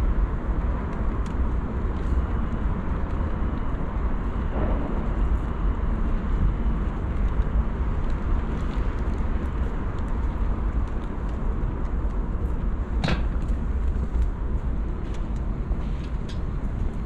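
Steady outdoor city background rumble, with one sharp click about thirteen seconds in.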